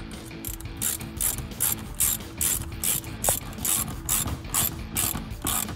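Hand ratchet with a 10 mm socket clicking through repeated back-strokes, about two to three strokes a second, as it tightens a worm-drive hose clamp on an air intake tube.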